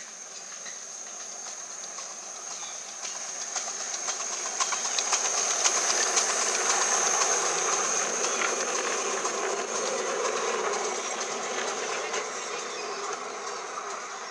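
Miniature ride-on steam locomotive and its passenger cars passing close by, with hissing steam and clicking wheels on the rails. The sound swells to its loudest about six seconds in as the engine goes by, then fades as the cars roll away.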